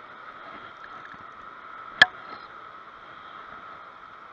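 Steady wash of river water at the shoreline, with one sharp click about two seconds in.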